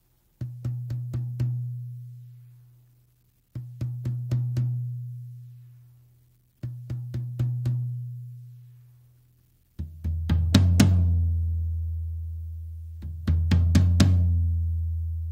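Drum toms with Remo Emperor Clear two-ply heads, lightly damped with gel, struck with sticks. A higher tom gets three quick groups of about five hits, each left to ring out. About ten seconds in, a larger, deeper tom gets two louder clusters of hits and rings long.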